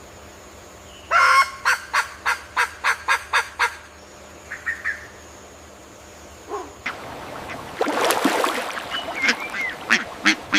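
Bird calls: a loud call followed by a quick run of about nine sharp repeated notes, a few faint chirps, then a harsh, noisy call and more repeated notes near the end.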